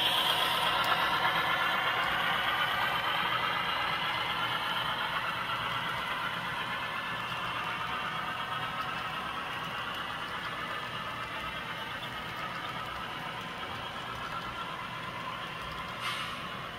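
Model freight train running along the track: a steady rolling and mechanical running noise from the passing container cars and locomotive. It is loudest at the start and slowly fades as the train moves away.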